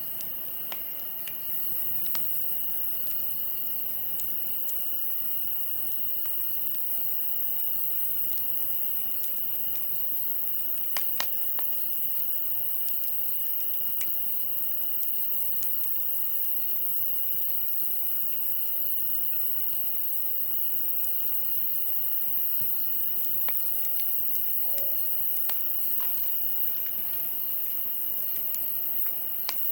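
Wood campfire crackling with scattered sharp pops, one louder pop about 11 seconds in, over a steady high insect trill.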